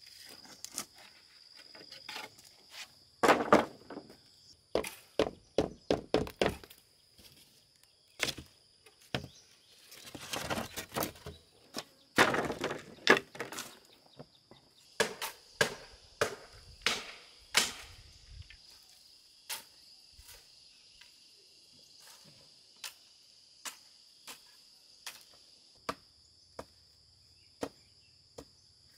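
Irregular chopping knocks and thuds from hand-tool work, dense and loud in the first half, then thinning to light, scattered taps. A steady high insect buzz runs underneath.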